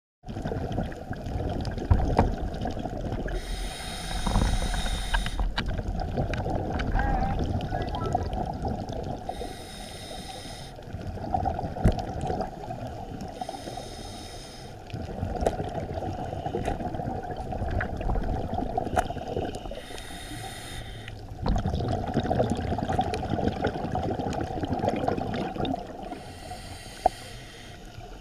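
A scuba diver breathing through a regulator underwater, heard through the camera's housing. The regulator hisses steadily, and a burst of exhaled bubbles comes about every five seconds, with a few sharp knocks in between.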